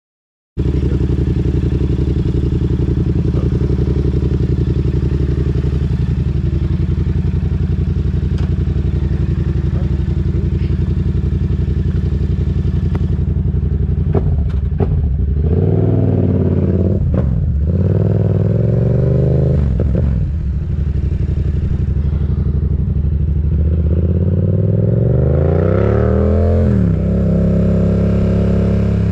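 Yamaha MT-07's parallel-twin engine through an M4 aftermarket exhaust, idling steadily for about the first half, with a few sharp clicks midway. It then revs up and down, and pulls away with the pitch climbing for several seconds before dropping at a gear change near the end.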